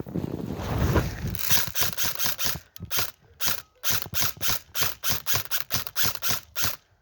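Quick run of ratcheting strokes, about four a second, ending abruptly; typical of an airsoft high-capacity magazine being wound by its thumb wheel.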